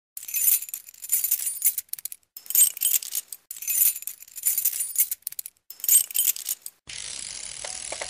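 Title-sequence sound effects: a series of short, bright metallic jingling and rattling bursts, each under a second, separated by brief silences. Near the end these give way to a steady faint hiss with a few soft clicks.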